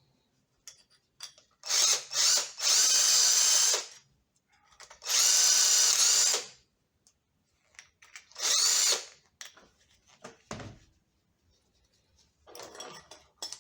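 Handheld power drill run in short bursts, about five times, with a high whine that rises as it spins up; a short low thump about three-quarters of the way through.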